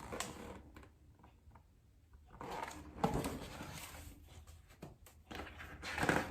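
Soft rustling and a light tap as a picture book is handled and its pages are turned, after a short near-silent pause.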